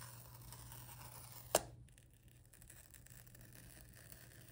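Faint scratchy rustle of an iPhone box's paper pull-tab seals being torn off the cardboard, with one sharp tick about a second and a half in.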